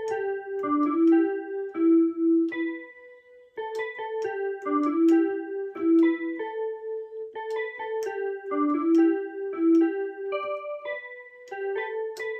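Electronic keyboard played one note at a time in a simple stepwise melody: a short phrase, a pause, then the same phrase twice more. It is a learner's playing of a piece still being learnt.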